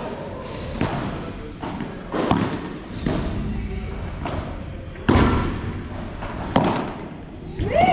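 Padel rally: the ball being struck by rackets and bouncing off the court and walls, a string of sharp hits roughly a second apart, the loudest about five seconds in.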